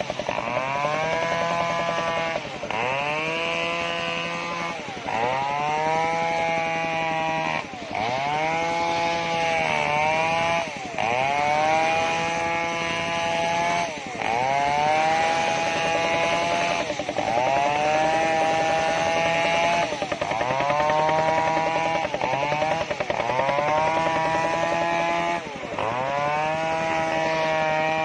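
Homemade engine-driven circular saw cutting sengon wood: a loud running engine and saw whose pitch sags and climbs back about every two to three seconds, as the blade is loaded by each pass through the wood and then freed.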